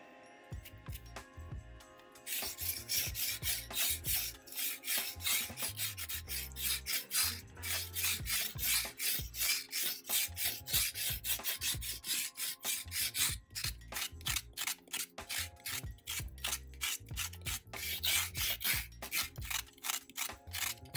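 A knife blade scraping the skin off a raw carrot: quick, repeated rasping strokes, several a second, starting about two seconds in.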